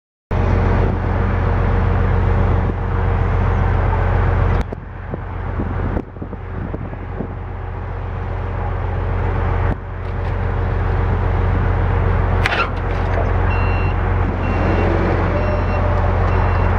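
A heavy engine running steadily, its level dipping and recovering a few times, with a brief rising whine about twelve seconds in. In the last few seconds a reversing alarm beeps about once a second.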